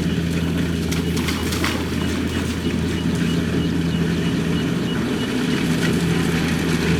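Kubota DC-70 combine harvester's engine running steadily, with a few brief rattles about a second in.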